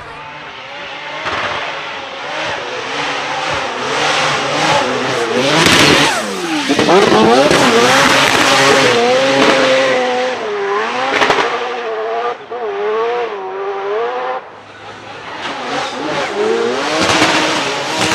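Twin-turbo 26B four-rotor rotary engine of a Mazda MX-5 Miata ND drift car revving hard, its pitch swinging up and down again and again as the car drifts, with tyres squealing.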